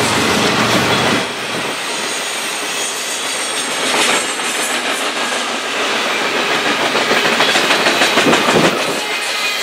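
A train passing close by, its wheels clicking in a quick rhythm over the rail joints, loudest a second or so before the end.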